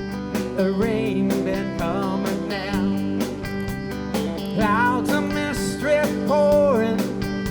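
A band playing live country-rock, led by strummed guitar chords at a steady beat, with a melody line rising and falling over it in the second half.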